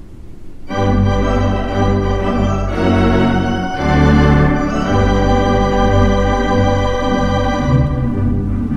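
Organ playing slow, held chords that come in just under a second in and change every second or so.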